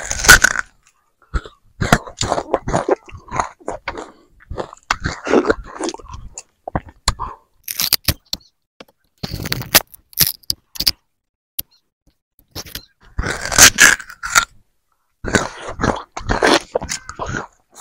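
Raw sugarcane being bitten and chewed close to the microphone, its rind stripped off with the teeth: crunching and fibrous cracking in irregular bursts with short pauses between them, loudest at the start and again about three-quarters of the way through.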